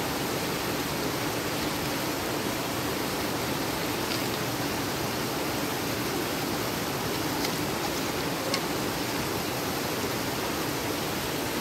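Steady rush of running water, with a few faint clicks about four and eight seconds in.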